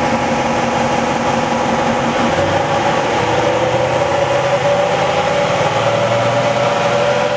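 Toyota 79 series Landcruiser's V8 turbo-diesel running at a steady speed with its rear wheels driving the rollers of a chassis dynamometer, a continuous drone with a steady whine over it, while the engine warms up before the tuning runs.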